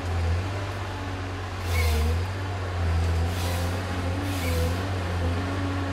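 Neuson Ecotec 242 HVT tracked forest harvester working, its diesel engine running with a steady low hum that shifts in pitch under load. Three short hissing bursts come from the machine about two, three and a half, and four and a half seconds in.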